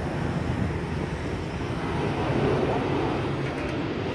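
Boeing 737-800 airliner on approach with landing gear down, its CFM56 jet engines giving a steady rumble that slowly grows louder as it nears.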